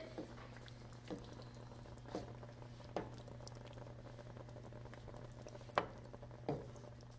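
Thick cream sauce bubbling faintly in a sauté pan while a wooden spoon stirs ravioli through it, with a few soft clicks spread through.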